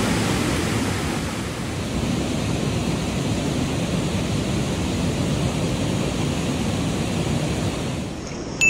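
Rushing stream water tumbling over a rocky cascade, a steady wash of whitewater noise. It dips briefly near the end, then a short sharp sound breaks in.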